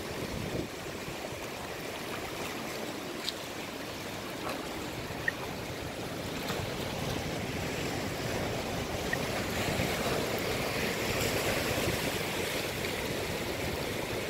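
Shallow seawater washing and lapping over a rocky shore, a steady wash that grows a little louder about ten seconds in.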